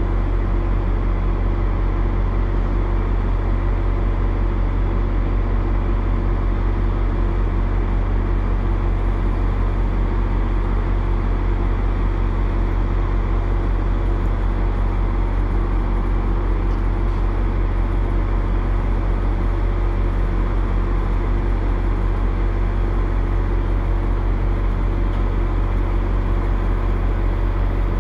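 NJ Transit Comet V commuter train standing still and idling: a steady, loud, deep hum with a fixed tone over it, unchanging throughout.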